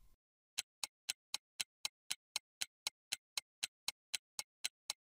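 Ticking-clock sound effect, even and steady at about four ticks a second, starting about half a second in. It marks a thinking pause for the viewer to work out the answer.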